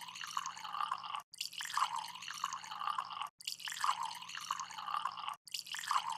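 Drinking from a plastic water bottle: faint wet gulping and glugging of liquid, repeating in stretches of about two seconds with brief silent breaks.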